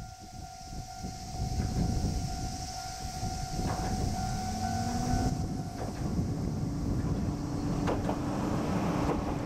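Diesel railcar passing at speed: a low rumble builds as it nears, and its engine note rises in pitch about halfway, then holds steady, with a few clacks from the wheels. A level crossing alarm sounds as a steady high tone until about halfway through.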